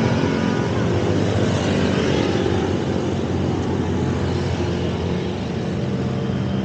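Steady road traffic noise: the engines of nearby cars and motorcycles running, with no single event standing out.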